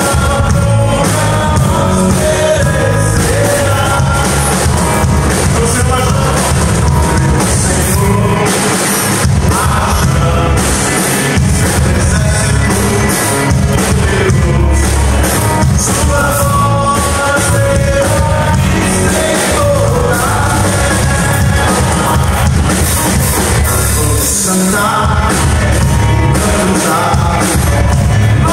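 Live worship band playing a gospel rock song: a male voice sings over electric and acoustic guitars, keyboard and a drum kit, amplified through a PA in a large open hall.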